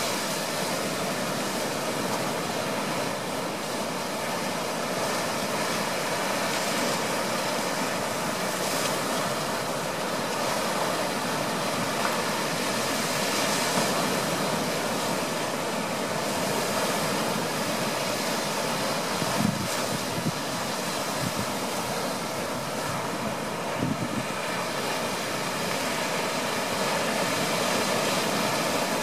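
Surf breaking and washing over a shallow sandy, rocky shoreline: a steady rush of waves, with a few brief low thumps about two-thirds of the way through.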